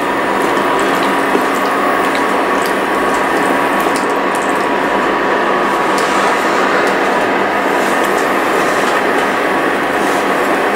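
Vegetables in green masala sizzling steadily in a nonstick pan on an induction cooktop, with a constant electrical hum from the cooktop under it.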